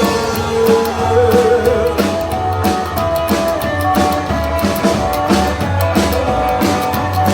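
A rockabilly band playing an instrumental passage between sung lines, with drums keeping a steady beat under sustained guitar and bass notes.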